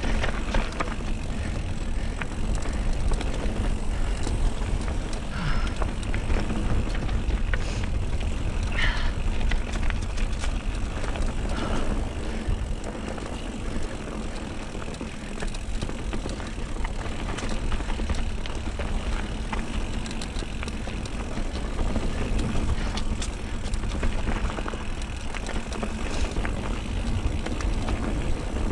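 Mountain bike riding noise from a rider-mounted camera: steady wind rumble on the microphone over tyres running on dry dirt and the bike's rattles and clicks.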